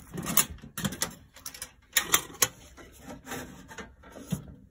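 Handling noise of a phone moved close over a sheet-metal drum oven: irregular rubbing and scraping with several light clicks and knocks, stopping near the end.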